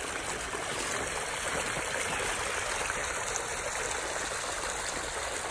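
Snowmelt and rainwater running steadily down a narrow trench dug through snow and spilling out across pavement: a continuous stream of flowing water.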